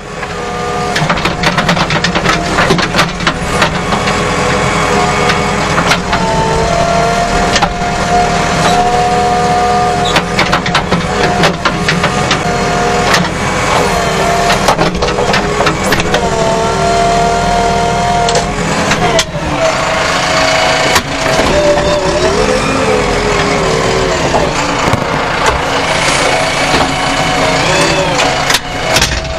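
Diesel engine of a JCB 3DX backhoe loader running under load from inside the cab while the backhoe digs. The pitch rises and falls in several stretches as the hydraulic levers are worked.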